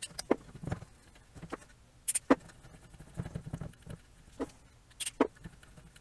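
Two short hisses of DeoxIT aerosol contact cleaner sprayed into the bass level potentiometer of a subwoofer amplifier board, about two and five seconds in, among scattered clicks and scratchy handling sounds. The pot is being cleaned because it is suspected of causing a low rumble and crackle.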